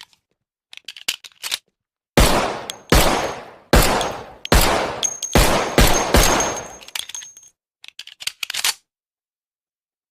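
Colt M1911 .45 ACP pistol: a few light metallic clicks of handling, then a string of about seven shots fired at a steady pace, a little under one a second, each ringing out with a decaying tail. A few more faint clicks follow near the end.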